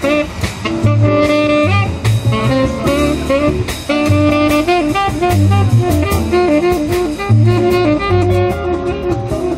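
Tenor saxophone playing a flowing jazz melody, backed by a drum kit with cymbals and a double bass walking low notes underneath.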